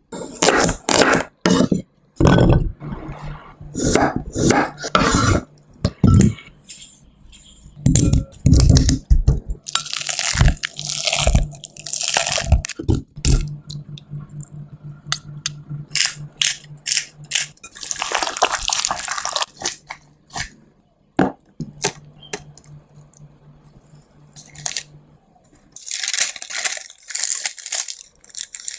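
A run of kitchen food-preparation sounds: sharp knocks and clicks of utensils on bowls and boards, with water. Near the end comes the crinkle of sandwich-wrapping paper being folded.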